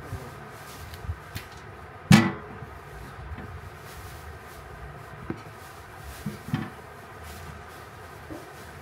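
Fruit and a glass plate being set down and shifted on a large aluminium tray: one loud knock about two seconds in, then a few softer knocks, over a steady low hum.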